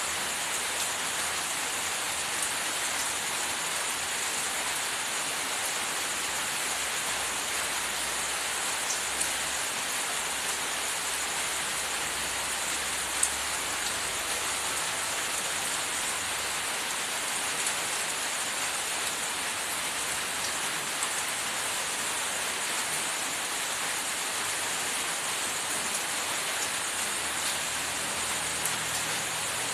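Steady hissing noise throughout, like rain on a surface, with scattered faint ticks and one sharper click about thirteen seconds in.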